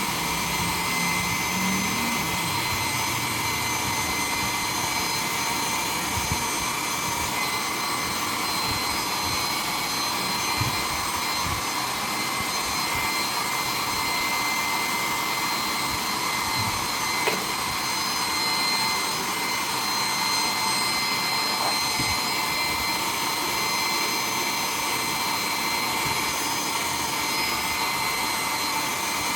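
Handheld hair dryer running steadily: a constant rush of blown air with a high, steady motor whine.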